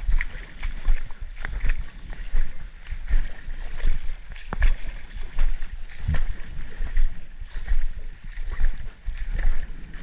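Legs wading through shallow creek water, a slosh and splash with each stride about every two-thirds of a second.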